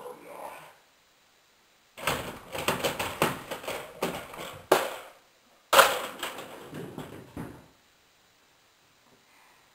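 Toy car and sock puppet being handled against a plastic playhouse window: scraping and rustling with sharp knocks, in two bursts. The second burst opens with a loud knock.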